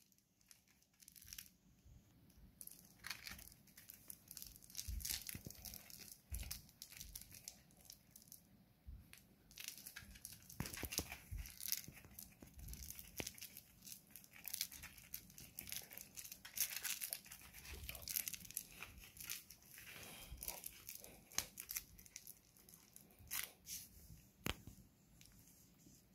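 Faint irregular rustling, scratching and scattered small clicks as a Bichon Frise puppy tugs at and mouths a plush toy held in a hand.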